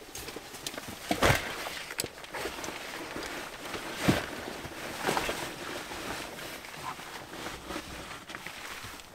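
A heavy backpack and gear bag being set against a car's rear seat: fabric and straps rustling, with a few knocks, the loudest about a second in.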